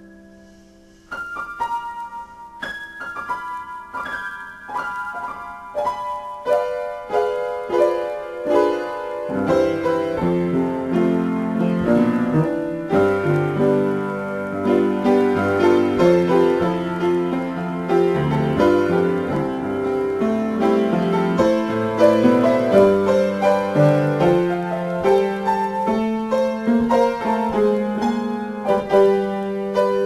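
Solo piano improvisation. After a held note dies away, single notes are played, then from about nine seconds in it becomes fuller and louder, with chords over a moving bass line.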